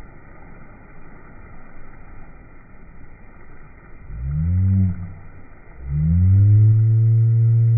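Slowed-down audio of splashing in a swimming pool: a dull, muffled wash of water, with a voice stretched into a deep, slow moan about four seconds in and again from about six seconds, the second one held steady.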